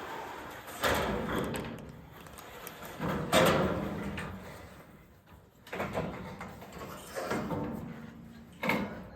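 Steel roofing sheets being handled and slid into place, rattling and scraping in four sudden bursts, each fading over a second or two.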